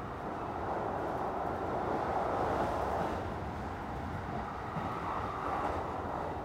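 Kintetsu 2800 series electric train running, heard from inside the passenger car: a steady rumble of running noise that swells louder for about two seconds starting a second in, and again briefly near the end.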